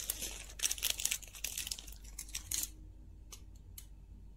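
Small clear plastic bag of resistors crinkling as it is handled, for about the first two and a half seconds, then a couple of light ticks.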